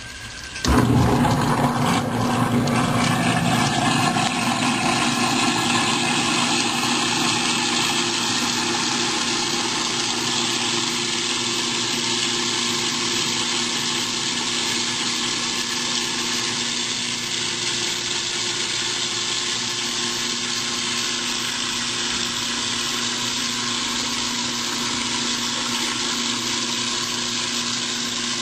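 Waste King SS3300 garbage disposer starting up about a second in and grinding potato peelings and coffee grounds with tap water running, its motor hum under a loud grinding churn. It runs with no splash guard, so the grinding chamber is heard openly. It is loudest in the first few seconds, then settles into a steady run.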